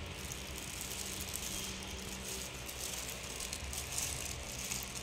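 Soft crackling rustle of disposable plastic gloves and shrimp shells as steamed shrimp are peeled by hand, over a steady low hum.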